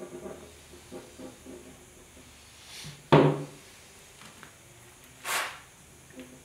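Hand-tool handling at a workbench: a few faint clicks, then one sharp clunk about three seconds in, the loudest sound, and a brief rustling hiss near five seconds.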